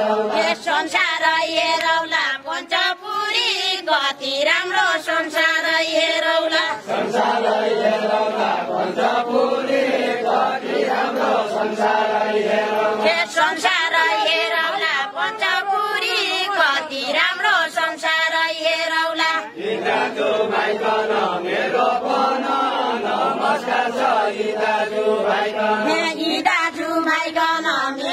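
Deuda folk song: a line of dancers sings together in a chant-like group melody, with no instruments heard, and the singing pauses briefly twice.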